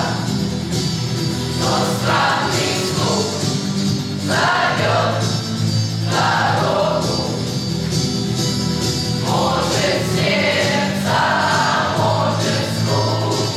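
Youth choir singing a song in phrases of a few seconds each.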